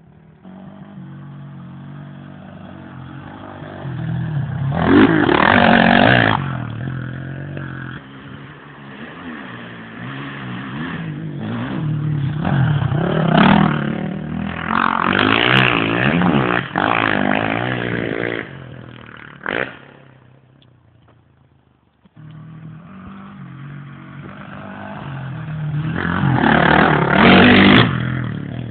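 Motocross bikes accelerating up an uphill bend, engines revving hard as they pass one after another, with loud passes about five seconds in, from about thirteen to eighteen seconds, and near the end. The engine sound fades out around twenty seconds in and comes back abruptly about two seconds later.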